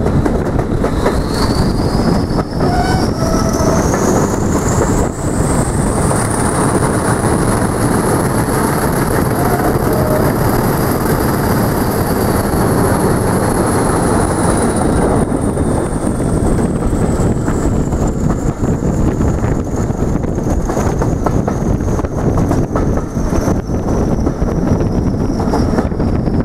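Train running at speed behind English Electric Class 40 diesel D345: a dense, steady rumble of engine and wheels on the rails, with a high whistle that climbs over about ten seconds and then slowly sinks, the turbocharger whistle the Class 40 is known for. Partway through, the sound changes as the train runs through a brick tunnel.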